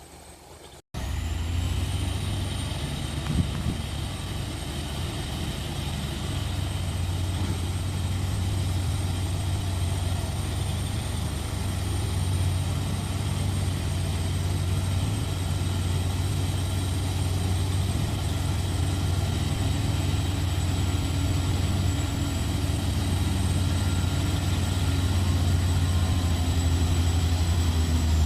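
Heavy diesel truck engine running hard under load, a steady low drone with a thin high whine above it, as a loaded truck struggles through deep mud; it starts abruptly about a second in.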